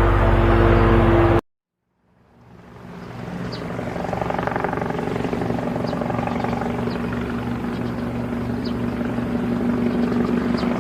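Helicopter rotor sound, a steady even chopping that fades in about two seconds in and keeps going. Before that, a different loud steady sound with held tones cuts off suddenly, followed by a moment of silence.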